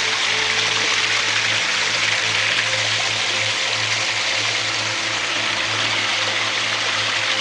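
Steady rush of stream water, with a low, steady hum beneath it.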